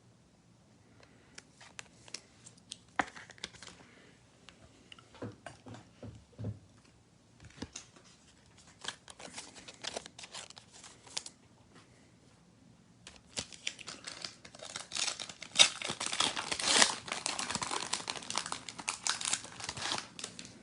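Scattered light clicks and rustles of trading cards being handled, then, about two-thirds of the way in, a dense crinkling and tearing as a trading-card pack's wrapper is ripped open and crumpled, loudest near the end.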